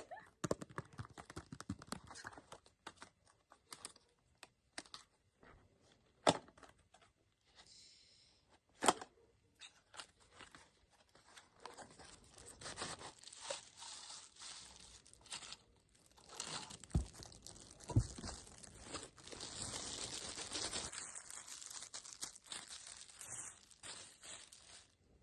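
Plastic and cardboard packaging being torn open and crinkled by hand while unboxing a selfie-stick tripod, with scattered sharp snaps and clicks. The longest, loudest crinkling comes about three-quarters of the way through.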